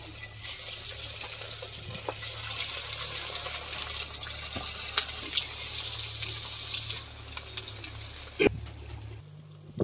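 Chicken pieces sizzling and crackling as they deep-fry in hot oil in a steel kadai, the hiss swelling as more pieces go in and thinning near the end. One sharp knock comes near the end.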